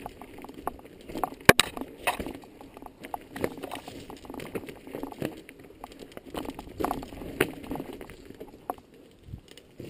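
Mountain bike clattering over a rocky trail: tyres crunching on stones and gravel with irregular knocks and rattles from the bike, and one sharp clack about a second and a half in.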